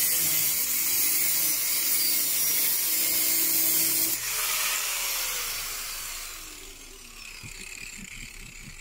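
Angle grinder with a thin cutting disc slicing through the car's sheet-steel rear panel, a harsh hiss over the motor's hum. About four seconds in, the disc comes off the metal and the motor winds down with a falling whine.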